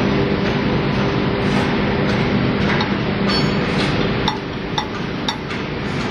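A steady machine hum, with several light metallic clinks about halfway through.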